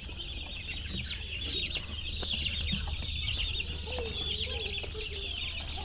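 A large flock of chickens in a poultry shed: a dense, unbroken chorus of high-pitched peeping, with a few lower clucks about two-thirds of the way in, over a steady low hum.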